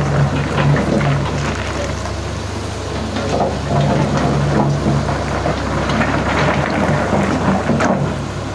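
CAT hydraulic excavator's diesel engine running steadily as the machine works its bucket over a pile of rocks, with irregular clatter and scraping of stones on top.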